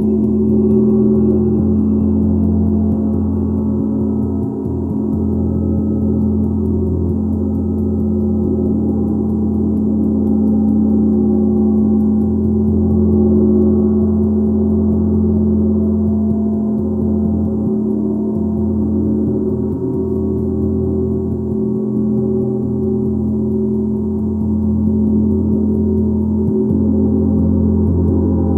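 Gong played as a sustained, steady drone of many overlapping low tones that blend into one continuous wash, with no distinct separate strikes.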